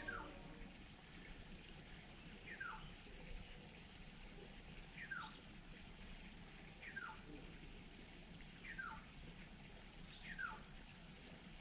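Faint animal call repeated about every two seconds: each a short whistle that falls in pitch, over faint steady background noise.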